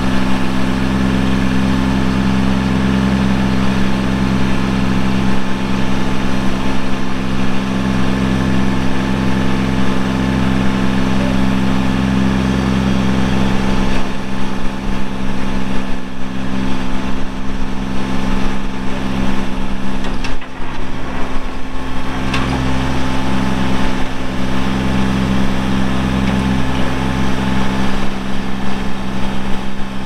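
Kubota B2650 compact tractor's three-cylinder diesel engine running steadily while the backhoe is worked, its note shifting and dipping briefly past the middle.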